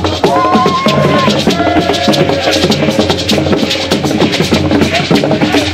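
Live traditional drumming: a group of drummers beat drums slung under the arm with sticks in a fast, dense rhythm. A high, wavering tone sounds over the drums at times.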